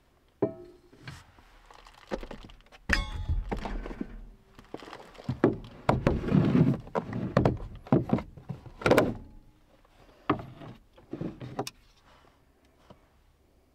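A stainless steel plate set down on a wooden tabletop with a brief metallic ring, then a plastic food container handled: its clip lid unsnapped with sharp clicks, pulled off and set down, with rustling of leafy greens inside.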